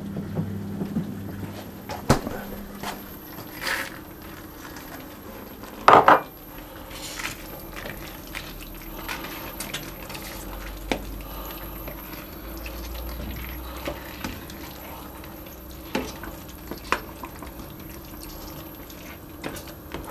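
Spoon stirring peas into a thick, creamy chicken and vegetable filling in an enamelled casserole, with scattered clinks and taps of the spoon against the pan and one louder knock about six seconds in.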